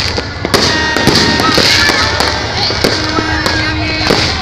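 Fireworks display: a string of sharp bangs and crackling bursts, with music and voices underneath.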